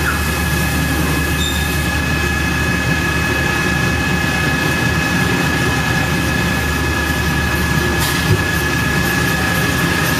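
Industrial machinery running steadily: a constant high whine over a low hum and a noisy mechanical bed.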